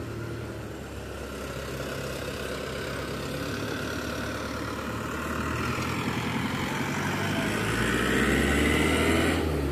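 Vehicle engines running on a steep hill road: a steady low engine idle, with one engine growing louder and straining over the last few seconds before it drops off suddenly.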